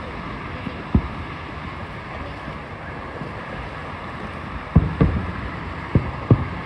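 Fireworks going off: one sharp boom about a second in, then four more in quick succession near the end, over a steady rushing noise like wind.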